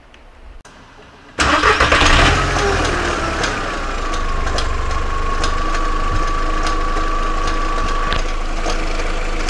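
Volkswagen Jetta 2.0-litre four-cylinder engine starting about a second and a half in and settling to idle, with a whine that falls and then holds steady. Through it runs an irregular ticking that does not keep time with engine speed.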